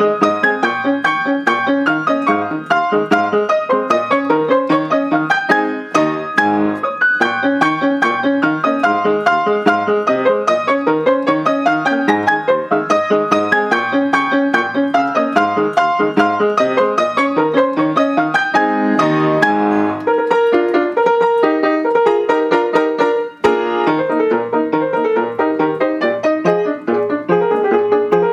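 Solo piano playing a brisk march-style piece in quick runs of notes, with a steady bass and a busy treble line.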